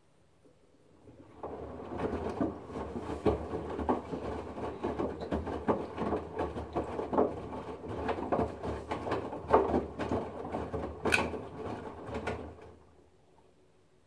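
LG front-loading washing machine drum turning during the wash phase with a lot of water: the motor starts the drum about a second in, water sloshes and splashes with the load over a low motor hum for about eleven seconds, with a sharp click about eleven seconds in, then the drum stops near the end.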